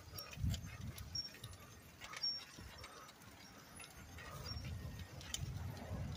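Bike rolling along a concrete sidewalk: a low, uneven rumble with irregular clicks and knocks, and a short high chirp every second or two.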